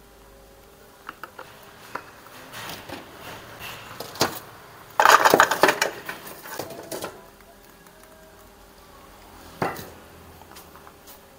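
Clinks and knocks of a wok and cooking utensils at a gas stove, with a loud burst of clattering about five seconds in and a single knock near the end.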